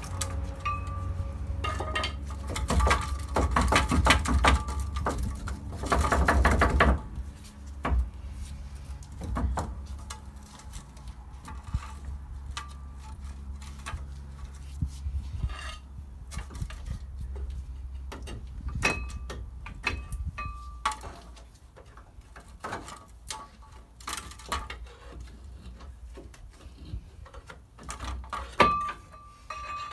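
Metal clinking, knocking and rattling as a rusted front wheel hub bearing assembly is worked loose from the steering knuckle, with a dense run of rapid clicks and knocks in the first seconds, then scattered single knocks. A low steady hum lies underneath.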